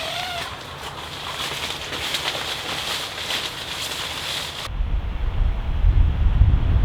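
Seaside wind noise: an even rushing hiss of wind and surf, which switches abruptly about two-thirds of the way in to a heavy low rumble of wind buffeting the microphone.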